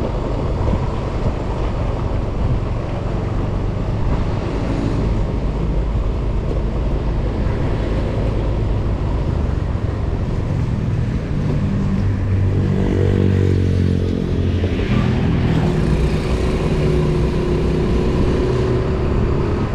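Small motor scooter engine running as it rides along, with continuous road rumble. About twelve seconds in the engine note rises and shifts as the scooter speeds up, then settles into a steady higher tone.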